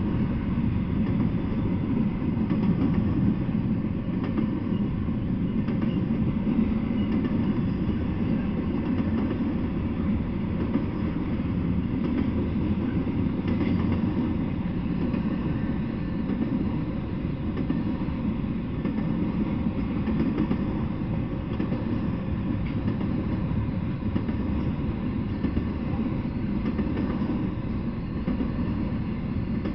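Intermodal freight train rolling past: the steady low noise of its steel wheels on the rails as container well cars and trailer-carrying flatcars go by.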